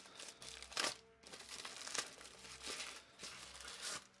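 Plastic packaging bag crinkling and rustling as a parcel is handled and opened, with sharper crackles just before a second in and at about two seconds.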